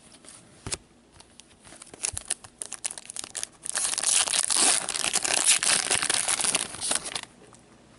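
Plastic or foil wrapper of a trading card pack being crinkled and torn open: scattered crackles at first, then about three and a half seconds of dense crinkling that stops suddenly.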